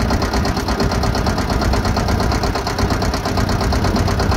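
Motorboat engine running steadily with a rapid, even beat, heard from on board the wooden boat.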